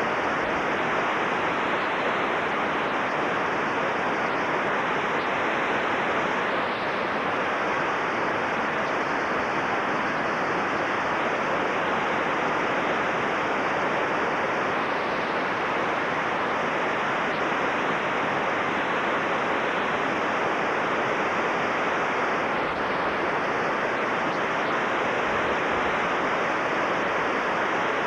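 Whitewater rapids pouring over rock ledges: a steady, unbroken rush of water.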